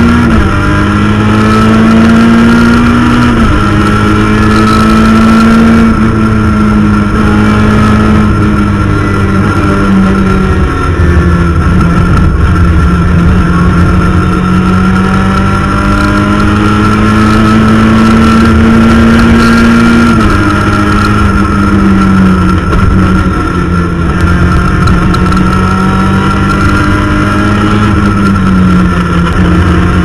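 Rally car engine heard from inside the cabin, driven hard on a special stage: its pitch climbs steadily for a few seconds, then drops at each gear change, several times over, with a steady high whine and road noise underneath.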